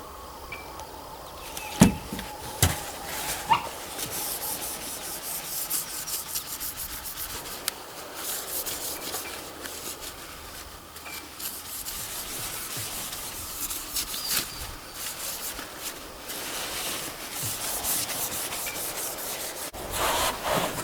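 A rag rubbing along a freshly draw-filed steel rifle barrel to degrease it before bluing: a long run of brushy wiping strokes, with a couple of sharp knocks about two seconds in.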